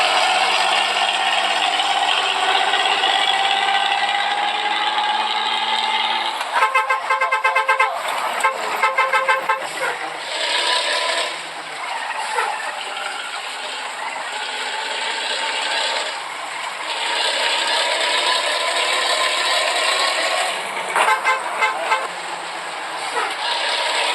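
Truck horn sounding in rapid pulsed toots, in two runs a few seconds long, the first about six seconds in and the second near the end. Steady vehicle noise runs throughout, with a slowly rising whine over the first few seconds.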